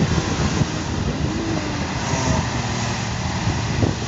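Off-road vehicle engine running, its revs rising and falling, with scattered knocks and rattles.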